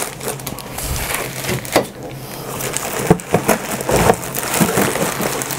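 Cardboard packaging being torn open and handled: irregular rustling and crinkling with several knocks and thuds, the heaviest thud about four seconds in.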